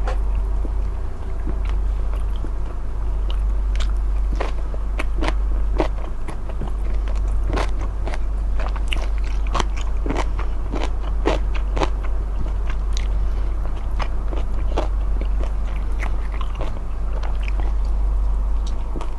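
Close-miked eating of smoked chicken: wet, crunchy bites and chewing, with many sharp crackling clicks, over a steady low hum.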